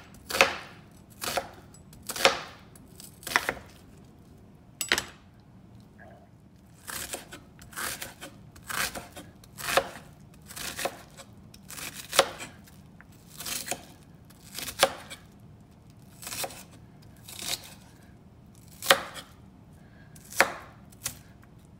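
Chef's knife dicing a red onion on a wooden cutting board: unhurried, sharp knocks of the blade on the board, one or two a second, with a pause of about two seconds around five seconds in.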